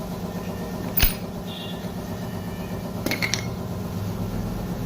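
Metal tools knocking and clinking on engine parts, with one sharp knock about a second in, a brief creak, and a few clinks around three seconds in. Under them runs a steady low engine-like hum.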